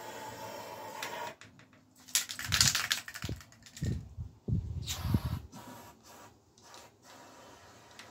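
Aerosol spray can hissing as it sprays through its nozzle into a bike frame's small holes for about the first second. Then come short, louder spray bursts mixed with knocks and clicks of handling between about two and five and a half seconds in, and a few faint clicks after that.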